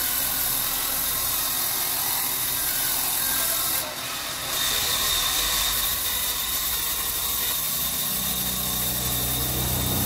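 Band saw cutting lengthwise through a timber plank: a steady sawing noise that dips briefly about four seconds in, after which a steady high whine runs alongside it.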